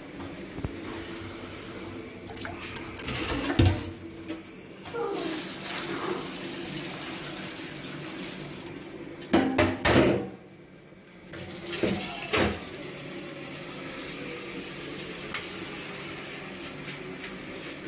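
Water poured from a steel jug over the meat and bones in a pressure cooker, with metal pots knocking a few times, about three and a half seconds in and again around nine to ten seconds in.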